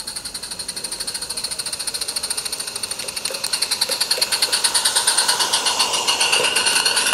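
Small live-steam garden-railway locomotive chuffing, its rapid, even exhaust beats growing louder as it comes close and passes.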